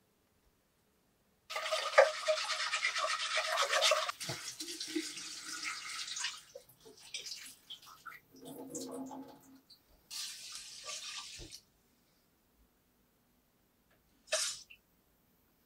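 Tap water running into a stainless steel pot of rice, with the pot ringing under the stream, then the cloudy rinse water being swirled and poured off into the sink as the rice is washed. The tap runs a second time briefly, and there is a short splash near the end.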